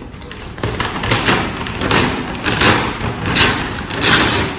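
A shopping bag rustling and crinkling as it is opened and rummaged through, with a few thuds as items are taken out.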